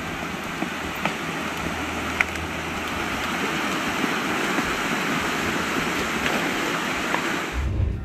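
Swamp water rushing and churning as the ground collapses and cypress trees topple into it, with a few sharp cracks. The rushing cuts off suddenly near the end.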